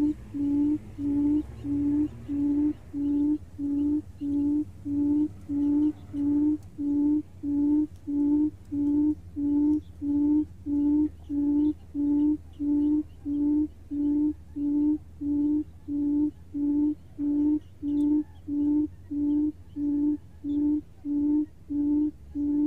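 Buttonquail call played from a small speaker as a lure: a steady run of low hooting notes, about one and a half a second, repeating evenly.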